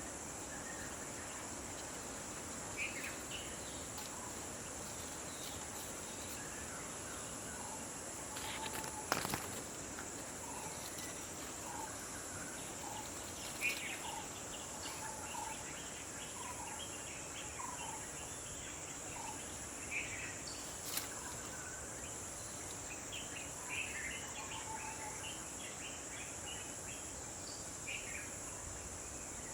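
A steady high insect drone, with a bird giving short repeated calls through much of it. Two sharp cracks stand out, one about nine seconds in and another about twelve seconds later.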